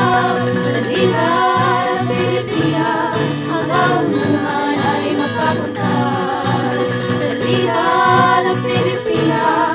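Background music with a steady beat and a wavering melody line, running straight into the program's sung closing theme.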